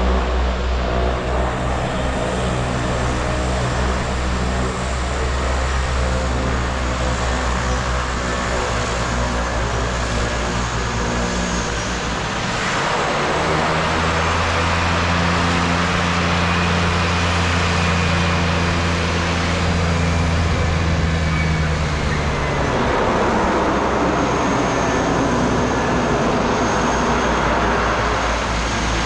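Small twin-turboprop aircraft engines running with a steady low drone. A louder rushing roar swells up about halfway through, fades, and swells again near the end.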